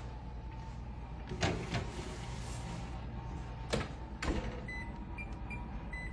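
A foil pan slid onto a wall oven's wire rack, the oven door shut with a couple of knocks a little after halfway, then several short beeps from the oven's touch keypad as the temperature and cook time are set.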